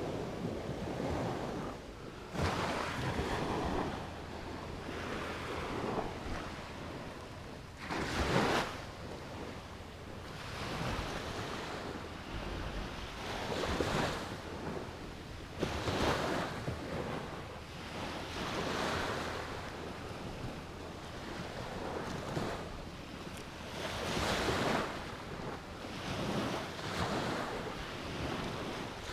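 Sea waves washing onto a beach, swelling and falling back every few seconds, with wind buffeting the microphone.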